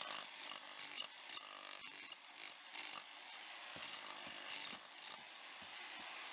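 Corded electric demolition hammer with a wide spade chisel bit chipping into hard, rocky soil at the bottom of a trench. It runs in short, uneven bursts.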